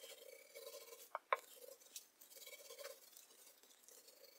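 Small glue roller spreading wood glue over a plywood board: a faint, irregular wet rolling and smearing, with a couple of light knocks just over a second in.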